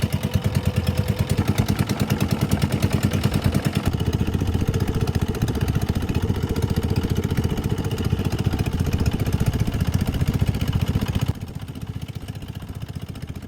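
Fishing boat's engine running steadily with a fast, even chug, becoming quieter about 11 seconds in.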